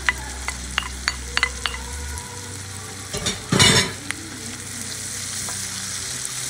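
Sliced onions and diced bell peppers sizzling in oil in a skillet, with sharp crackling pops during the first two seconds. A brief, louder burst of noise about three and a half seconds in.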